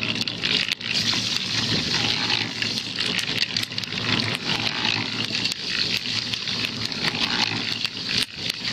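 Concrete mixer drum turning with a dry slag-and-ash cinder-block mix tumbling inside, a steady grating rush with many small clicks of clinker against the drum. Near the end water from a hose starts pouring into the mix.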